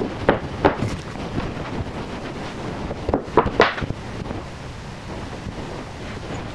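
Light knocks and clatter of wooden strips and a plastic glue bottle being handled on a workbench, with a cluster of sharper knocks about three seconds in, over a steady background hiss.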